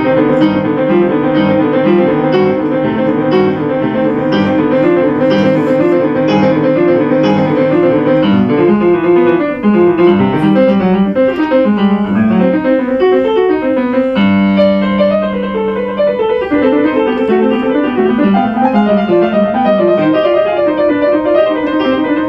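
Steinway grand piano played solo in a fast passage of many quick notes, with one chord held for about two seconds a little past the middle.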